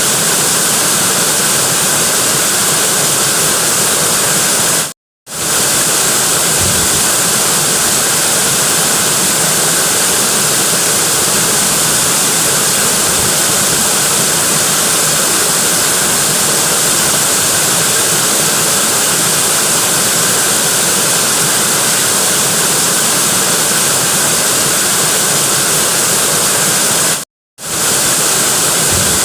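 Waterfall rushing in a steady, dense roar of falling water, cut by two brief dropouts to silence, about five seconds in and again near the end.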